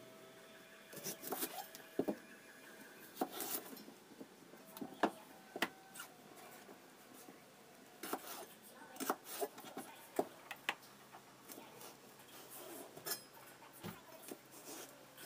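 Chef's knife slicing a cucumber lengthwise on a plastic cutting board: irregular sharp taps and knocks of the blade against the board, some in quick clusters.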